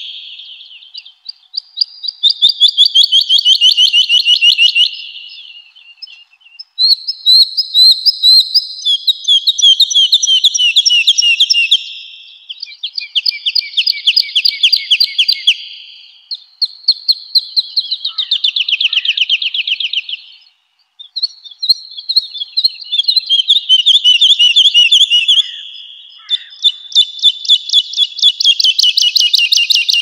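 Woodlark singing: a series of phrases, each a rapid trill of repeated liquid notes lasting a few seconds, many falling in pitch, with short pauses between phrases.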